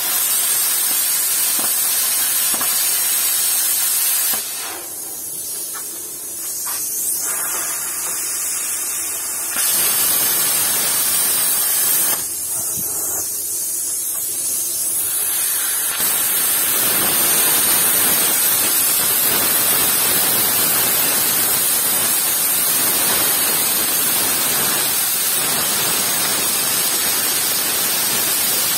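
Plasma cutter cutting steel: a loud, steady hiss of the air arc. It falls to a quieter hiss twice, from about 4 to 10 seconds in and again from about 12 to 16 seconds.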